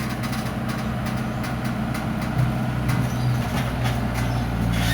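Excavator's diesel engine running steadily, getting louder about halfway through, with scattered light knocks.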